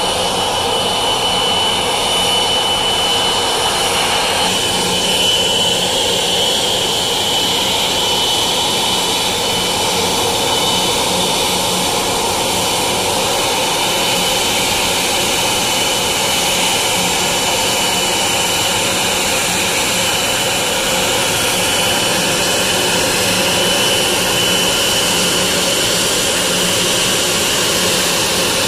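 Boeing 777-200ER's two turbofan engines idling as the airliner taxis in to park: a steady jet whine with a high whistle over a low hum.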